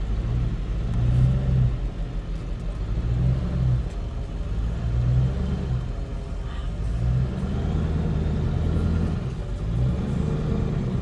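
Pickup truck's engine and road noise heard from inside the cab while driving slowly: a steady low rumble, with the engine note swelling and easing every second or two as the throttle changes.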